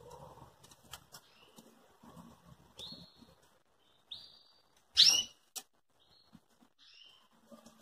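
Pintagol, a hooded siskin × canary hybrid, giving short single-note chirps several times, each a brief high note. About five seconds in there is a louder flutter of wings as it moves about the cage, with a few light clicks of its feet and beak.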